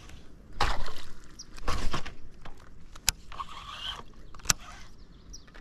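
Water splashing loudly at a fishing kayak, twice in the first two seconds, followed by two sharp knocks about a second and a half apart.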